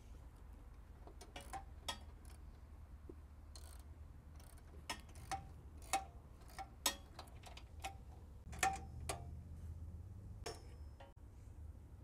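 Socket ratchet clicking in short, uneven runs as the nuts holding a steel hitch plate are tightened.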